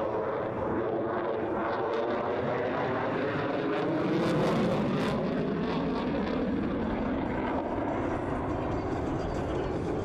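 Jet noise from an F-22 Raptor's twin Pratt & Whitney F119 turbofan engines as the fighter passes overhead, swelling about halfway through and then easing off.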